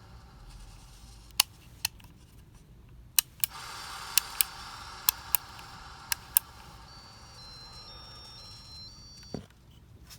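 A series of sharp mechanical clicks, mostly in close pairs, over a steady running noise, followed by a faint short run of high stepped beeps and a soft low thud near the end.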